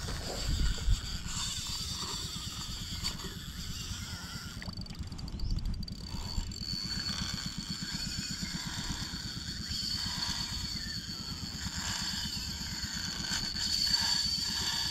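A small engine running steadily, with a thin steady high whine above it that gets a little louder near the end.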